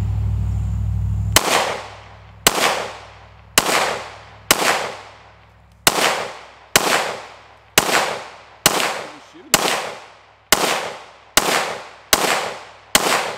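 FN Five-seveN pistol firing 5.7×28mm rounds in a slow, steady string. The first shot comes about a second and a half in, then thirteen shots about a second apart, each with a short echo.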